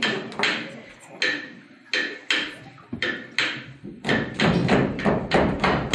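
Sharp rhythmic knocking, hard objects struck by hand in a steady beat of about two to three strikes a second. From about four seconds in the knocks come faster, about four a second, with heavier thuds underneath.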